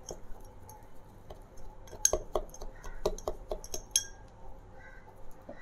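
A spoon knocking and clinking against the inside of a drinking glass while mint leaves, lemon pieces and sugar are crushed and mixed in it: a run of irregular taps, the loudest with a bright glassy ring about two and four seconds in.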